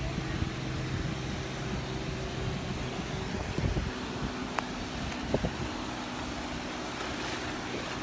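Surf washing onto the beach and wind on the microphone, over a steady low engine hum.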